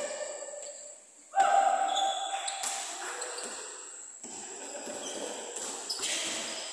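Basketballs bouncing on a court floor, a run of sharp knocks. The loudest hits about a second and a half in and rings briefly before dying away.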